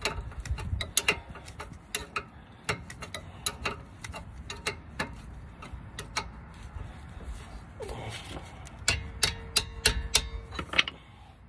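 Hand ratchet clicking in short, irregular strokes as the rear brake caliper bolts are tightened, with a quicker run of clicks near the end.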